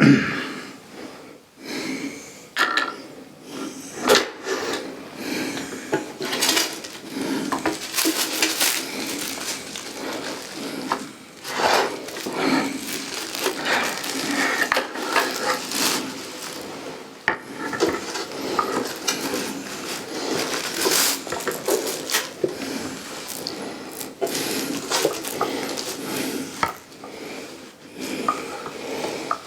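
Hard telescope parts being handled and fitted together: irregular metallic clinks, knocks and scraping.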